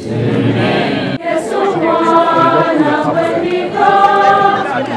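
A choir singing in parts, unaccompanied, with long held notes. About a second in, a denser mix of voices cuts off abruptly and the held singing takes over.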